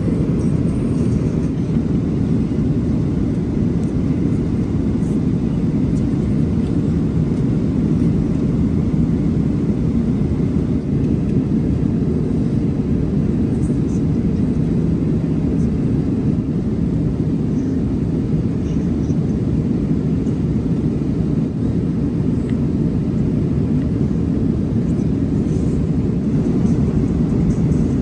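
Steady low roar of a Boeing 777-300ER's cabin in cruise: engine and airflow noise heard from inside the passenger cabin, even throughout.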